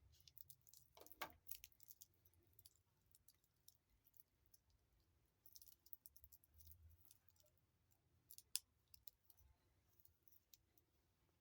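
Faint, scattered small clicks and light metallic taps from handling a stainless steel wristwatch and its bracelet. A sharper click with a short ring comes about a second in, and another near the end.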